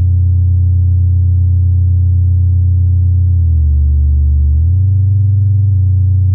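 Ambient drone music: deep, sustained low tones with faint steady overtones. The bass note shifts pitch a few times, stepping down a little past halfway and then back up about a second later.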